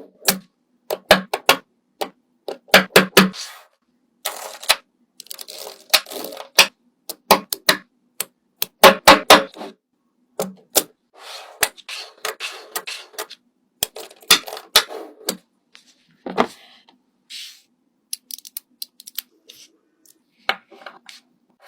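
Irregular sharp clicks and taps mixed with short rustling and scraping bursts, the sounds of small objects being handled. They come in clusters, some quick runs of several clicks, with short pauses between.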